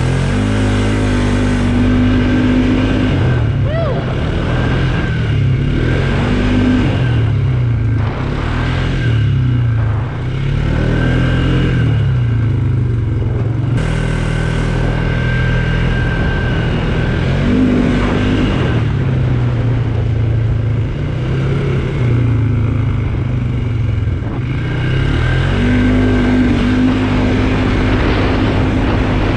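Polaris ATV engine running hard under load, its revs climbing and dropping again and again as the throttle is worked.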